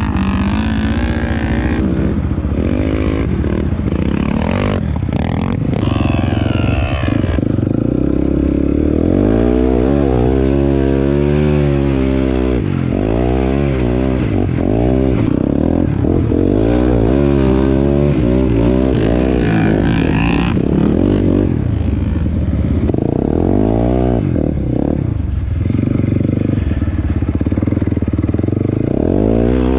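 Sport ATV's single-cylinder four-stroke engine under hard riding in sand, the revs rising and falling again and again as the throttle is opened and closed, heard from the rider's seat.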